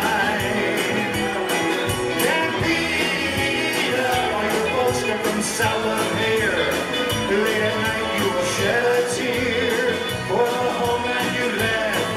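Live band playing an upbeat Latin-tinged rock number: electric guitars, keyboard, drum kit with a steady cymbal beat, and congas.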